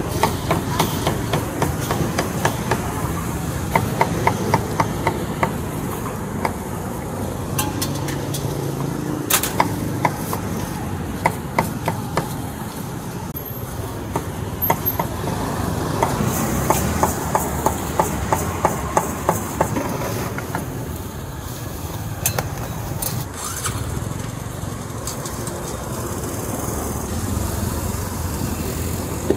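Several runs of rapid sharp knocks, about four a second, over a steady noisy background.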